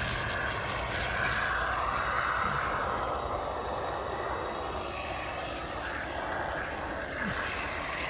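Aerosol can of Great Stuff Big Gap Filler expanding foam sealant hissing steadily as foam is dispensed through its straw nozzle.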